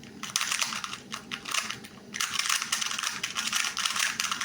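A 2x2 Rubik's cube being turned fast during a speed-solve: a rapid clatter of plastic clicks, with a short pause about two seconds in.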